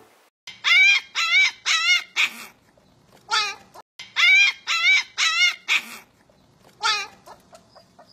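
Husky puppy giving about ten short, high yelps, each wavering up and down in pitch, in two runs with pauses between them.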